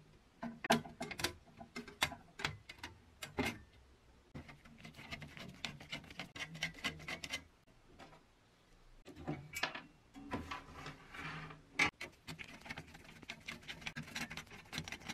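Ratchet wrenches clicking in quick runs as nuts are undone on a pressed-steel toy seaplane, mixed with light clinks and taps of the thin sheet-metal parts being handled.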